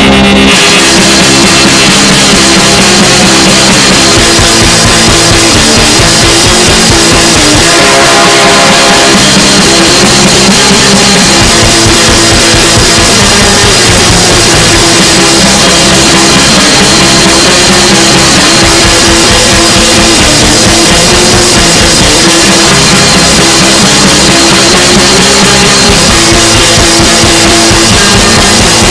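Lo-fi black metal: heavily distorted guitar riffing over fast, dense drumming, played loud throughout.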